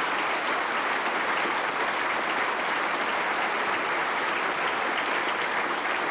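Studio audience and contestants applauding, a steady, sustained round of clapping.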